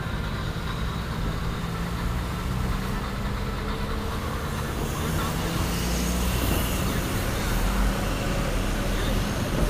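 Engine and road noise of a vehicle driving slowly, a steady low hum, with a rushing noise growing louder from about halfway through.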